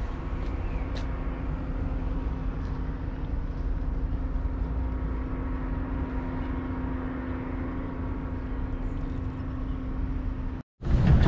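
Steady mechanical hum over a low rumble, holding one constant pitch, then cutting off suddenly near the end.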